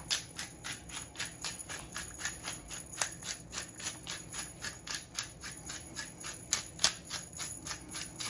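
Hand-twisted pepper grinder cracking peppercorns, its mill clicking in a steady rapid ratchet of about five clicks a second.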